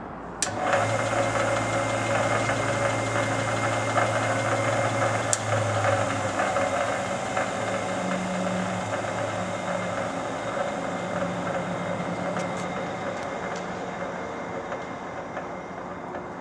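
Standard Modern 11 x 20 engine lathe, with its 1.5 hp single-phase motor, starting up about half a second in and running with a steady motor hum and headstock gear whir, after a belt change from high to low range. The sound grows gradually quieter over the second half.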